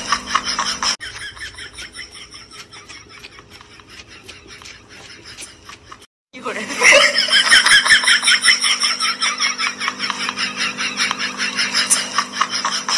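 Quick, repeated wet clicks of an animal lapping milk. From about six seconds in, a Pembroke Welsh corgi lapping milk from a dish, louder, with laughter over it.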